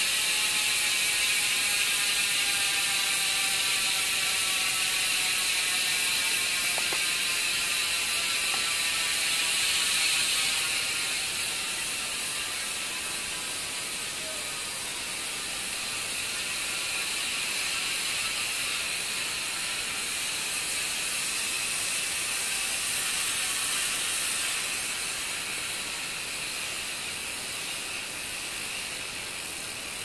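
Sagmit M120 rear hub freewheeling as the spinning wheel coasts. The freehub pawls give a fast, loud, continuous ratcheting buzz that slowly drops in pitch and fades as the wheel slows. The freehub body has just been cleaned and reassembled after two years of neglect.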